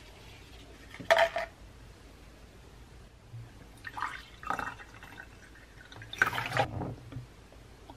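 Water poured from a plastic bottle into a glass tumbler, splashing into the glass in two stretches, the second louder, after a brief handling sound about a second in.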